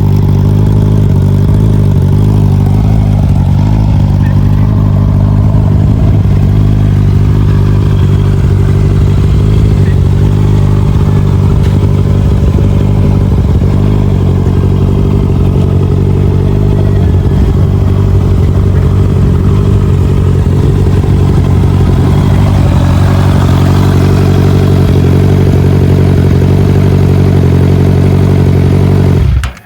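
Honda CBR650R's inline-four engine idling steadily through a full Akrapovic titanium exhaust system, a loud, even exhaust note at constant pitch.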